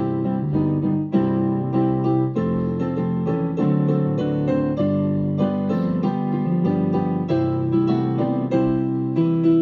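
A keyboard with a piano sound playing chords and a melody, with new notes struck about twice a second.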